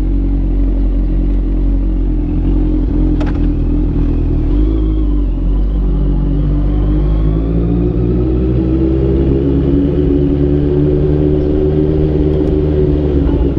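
Honda CBR650F motorcycle's inline-four engine running steadily at low revs, the pitch shifting slightly partway through. A single click sounds about three seconds in.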